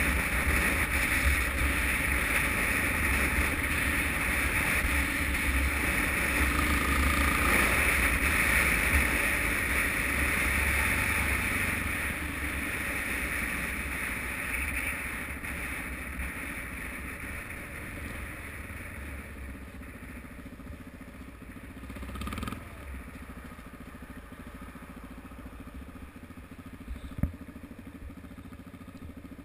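Suzuki DR-Z motorcycle riding along with wind noise on the helmet camera. It slows over the second half and settles to a steady idle as it comes to a stop. A single sharp click comes near the end.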